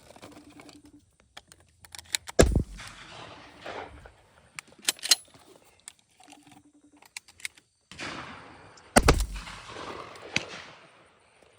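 Shotgun shots at incoming doves: two loud close reports, about two and a half seconds in and about nine seconds in, each trailing off in a rolling echo, with several fainter sharp cracks in between.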